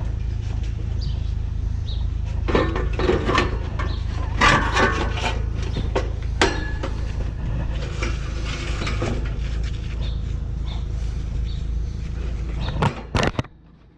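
Metal clanks, knocks and scrapes from hand tools and loose parts on an old air-conditioning condenser, clustered in the first half, over a steady low hum. A few sharp knocks come near the end, and then everything cuts off suddenly.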